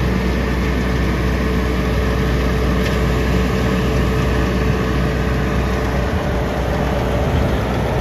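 Fendt 412 tractor's diesel engine running steadily under load while driving a CLAAS Rollant 255 round baler as it picks up cut hay, a constant deep rumble with the baler's machinery running alongside. The deepest part of the rumble eases a little about six seconds in.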